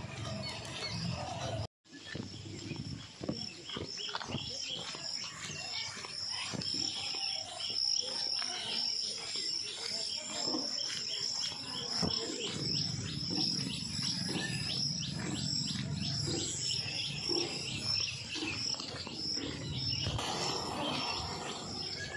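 Insects droning in a steady, high-pitched, pulsing chorus, with footsteps along a rough stony road. The sound cuts out briefly about two seconds in.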